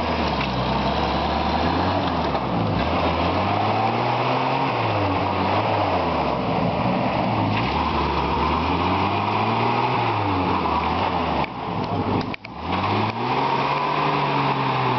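Off-road jeep's engine revving up and down over and over as it pushes through dense brush. There is a short break in the sound about twelve seconds in.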